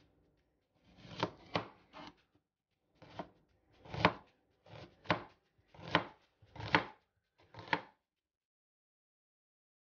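Kitchen knife chopping garlic, onion and ginger on a cutting board: separate sharp knocks of the blade on the board, about one a second and some in quick pairs, stopping about eight seconds in.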